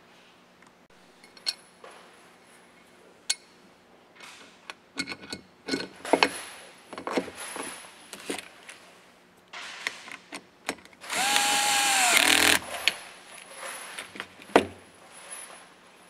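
Clicks and knocks of a screw and plastic parts being handled, then a cordless electric screwdriver runs for about a second and a half, about eleven seconds in, driving a screw through a linear actuator's back cover into its extension tube, its pitch dropping as it stops.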